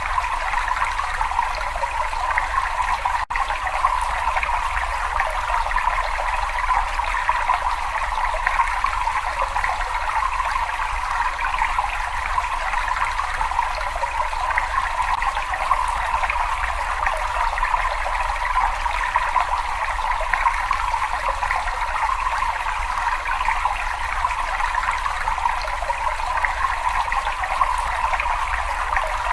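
Steady rushing, trickling water in a cave, an even unbroken flow with a low rumble underneath and a momentary dropout about three seconds in.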